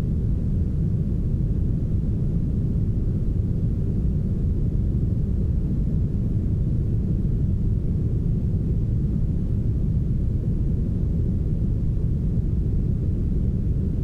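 Smoothed brown noise: a steady, deep, even rush of random noise with almost nothing above the bass, unchanging throughout.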